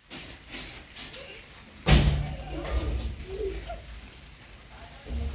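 A metal-framed house door bangs loudly once, about two seconds in, followed by a brief low rumble, over a faint steady hiss.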